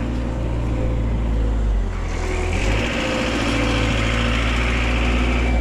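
Heavy vehicle engine running steadily close by; about two seconds in its sound changes and a hiss joins it.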